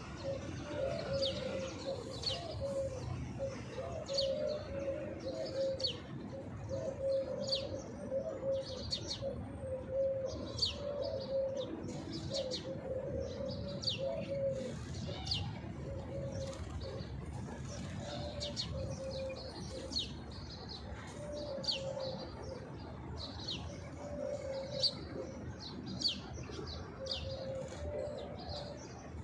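Pigeons cooing in low, wavering phrases, with small birds chirping in many quick high notes throughout.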